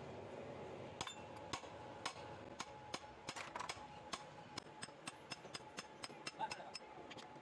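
Metal tools and parts clinking and tapping as they are handled, a string of sharp irregular clicks about two a second starting about a second in, over a steady background hum.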